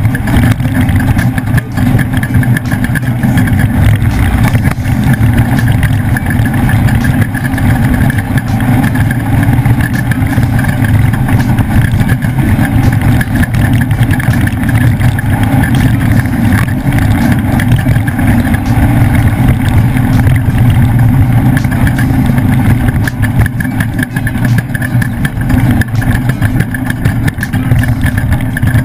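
Engine of a leaf-sprung Ford trophy truck running hard under racing load at a fairly steady pitch, with frequent knocks and rattles.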